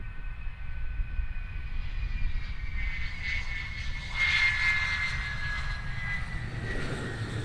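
MiG-31's twin D-30F6 afterburning turbofans at high power on the runway: a steady low rumble under a high turbine whine that slides slightly down in pitch. The noise swells about four seconds in.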